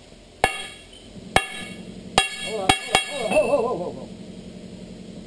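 Sledgehammer blows on the steel tire of a steam locomotive driving wheel, knocking the worn tire off the wheel. Five ringing metallic strikes, the last two in quick succession, followed by a brief voice.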